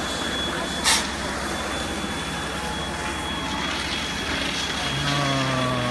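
Steady rumble of vehicle engines running, with a thin steady high whine over it. A single sharp crack sounds about a second in, and a short pitched hum starts near the end.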